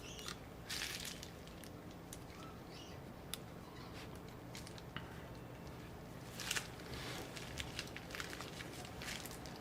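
Small clicks and two brief rustles from hands handling a laptop's internal parts and cables, over a steady low hum.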